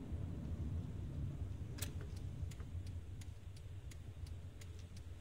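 Car's turn-signal indicator ticking inside the cabin, about three clicks a second, starting about two seconds in, over a low steady road and engine rumble.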